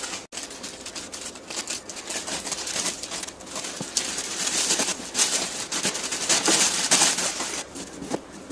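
Plastic courier mailer bag crinkling and rustling as hands tear it open and slide a cardboard box out, in a dense run of quick crackles.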